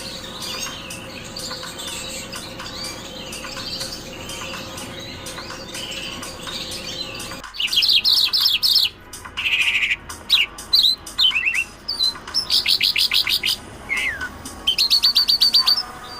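Bimaculated lark singing: a run of quick, varied chirps over a faint steady hum, then, about halfway through, an abrupt change to loud, rapid trilled phrases and sharp down-slurred notes repeated in short bursts.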